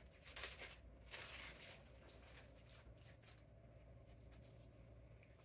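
Faint rustling and a few light clicks in the first second and a half as metal grill skewers are handled and drawn out of their packaging, then near silence with a low hum.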